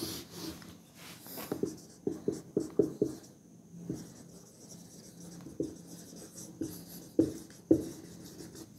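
Marker pen writing on a whiteboard: a run of short, separate strokes with pauses between them.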